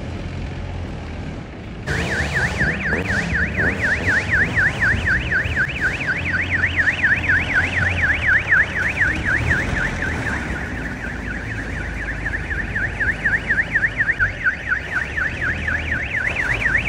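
Electronic siren on a jeep-based fire engine, sounding a fast warbling yelp that rises and falls several times a second, starting about two seconds in. The jeep's engine runs underneath as it drives.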